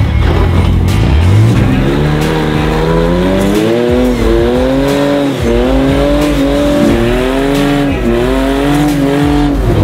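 Lifted kit-car Lamborghini replica's engine revving up about a second in, then held at high revs, wavering up and down, while its tires spin on the rock.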